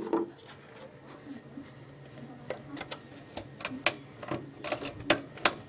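Sharp clicks and taps of the steel computer case and its parts being handled and pressed into place by hand, a scattered run of about eight after a quiet first half.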